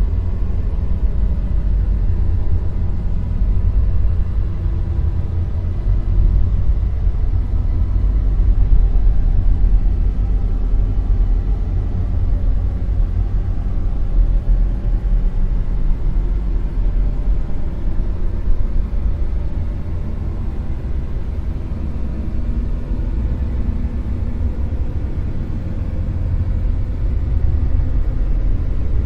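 Dark noise sound effect: a dense, deep rumbling noise with most of its weight in the low bass, rising a little about a third of the way in and easing off past the middle. A few faint, thin steady tones sit above it.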